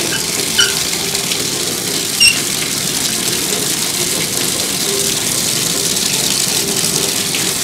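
A shower comes on and runs steadily, giving an even hiss of falling water.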